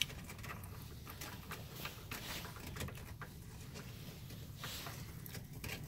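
Steel winch cable being pulled by hand off a freewheeling ATV winch drum and through the roller fairlead: faint, irregular clicking and rustling.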